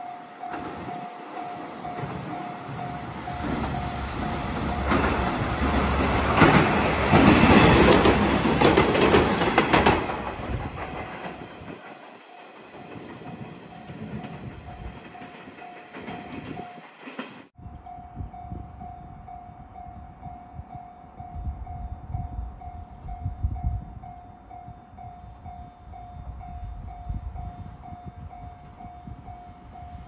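Two-car KiHa 120 diesel railcar set passing close by over a level crossing, rising to its loudest about six to ten seconds in and then fading away, with rail clatter. A level-crossing warning alarm sounds as a steady tone throughout, and keeps sounding after the railcar has gone.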